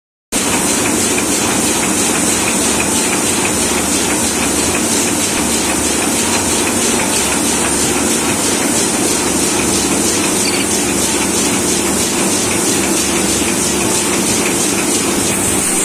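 Sheet-fed offset printing press running steadily: a continuous mechanical rattle with a constant high hiss.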